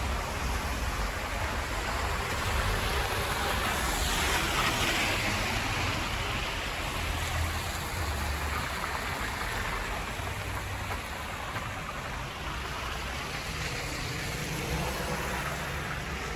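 Blizzard wind rushing steadily and buffeting the microphone, with a brief swell of hiss about four seconds in.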